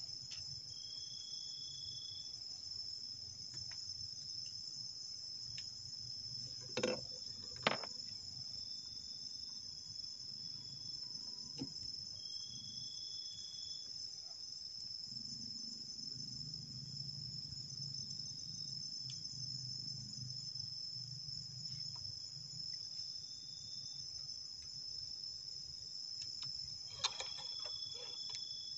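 Steady high-pitched chirring of night insects, with a shorter, lower call coming in every few seconds. A few sharp clicks sound about seven seconds in and again near the end.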